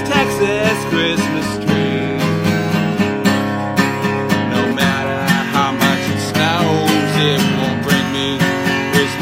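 A man singing while strumming an acoustic guitar in a steady rhythm.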